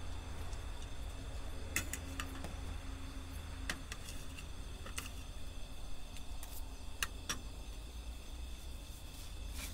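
A few sharp clicks of a spoon against a plate while eating, spaced irregularly, over a steady low hum.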